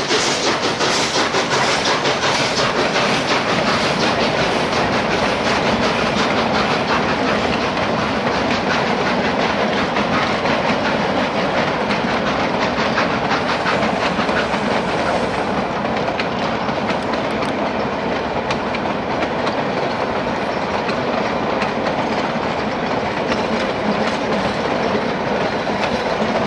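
Cumbres & Toltec narrow-gauge steam train's cars rolling past, steel wheels clicking steadily over the rail joints with a dense running rumble.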